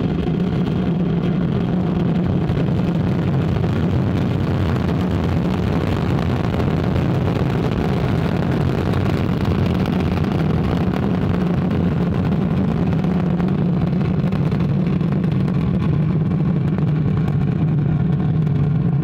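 Ariane 5 ECA rocket at liftoff: the Vulcain 2 main engine and two solid rocket boosters give a loud, steady roar with a deep low rumble. Its hiss fades somewhat over the last few seconds as the rocket climbs away.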